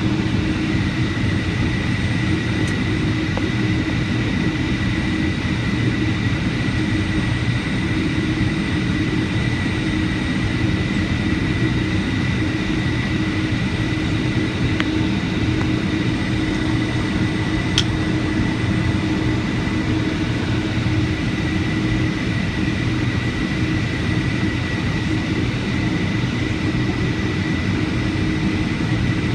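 Boeing 757-200 engines running steadily, heard inside the passenger cabin: a constant low rumble with a steady high whine. One brief click about two-thirds of the way through.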